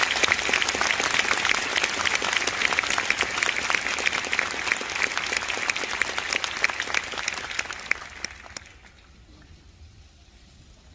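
Audience applauding, a dense patter of many hands clapping that dies away after about eight seconds into low hall noise.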